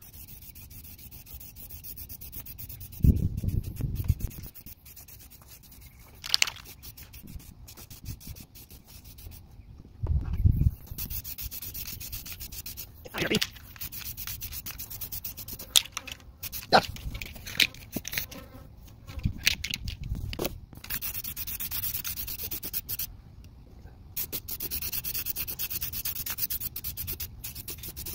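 Aerosol spray can of flat black paint hissing in a series of bursts as a light coat goes on, with short pauses between passes and a few sharp clicks. Twice, a loud low rumble stands out, once early on and once about a third of the way through.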